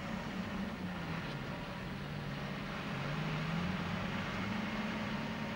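Expedition truck's engine running steadily on the move, with road and wind noise; its pitch sags slightly about halfway through, then rises again.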